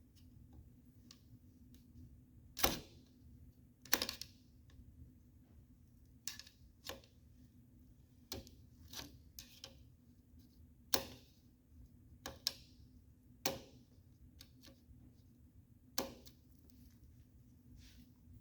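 About a dozen sharp, irregular clicks and taps of a screwdriver pressing and bending the small metal tabs of a car vent window frame down onto the seal.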